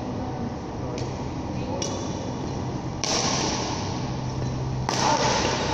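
Badminton rackets striking shuttlecocks: four sharp hits about a second or two apart, the ones about three and five seconds in the loudest, ringing on in a large hall. Players' voices and a steady low hum run underneath.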